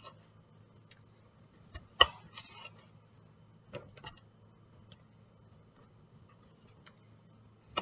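Kitchen knife slicing cucumber on a white cutting board: several sharp, scattered taps of the blade meeting the board, the loudest about two seconds in. A faint steady low hum runs underneath.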